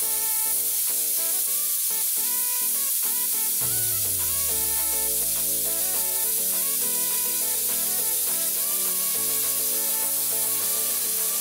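Steam hissing steadily as it escapes through an opened valve on the steam line of a stove-fired 250-litre fire-tube boiler. Background music plays under it.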